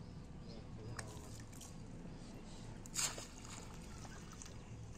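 Pond water sloshing and trickling as a cast net is dipped and swished in it, with one brief, louder splash about three seconds in.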